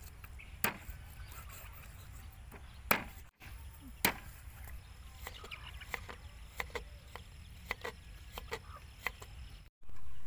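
Kitchen knife chopping on a wooden cutting board: a few sharp, separate chops, then a run of lighter, quicker cuts, about three a second, as vegetables are sliced. Near the end a sudden louder hiss starts.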